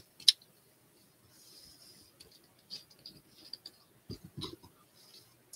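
Small plastic model-kit parts and tools being handled on a desk: scattered light clicks and taps, with one sharp click about a quarter second in. Around four seconds in, a few low knocks as the glue bottle is picked up off the table.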